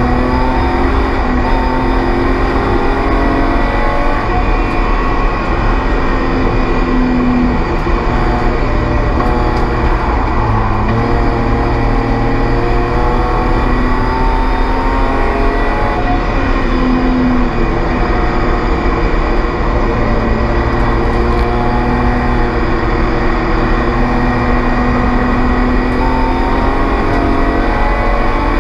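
BMW E36 race car's straight-six engine at race pace. It revs up and falls back again and again as it is driven through the gears around the circuit.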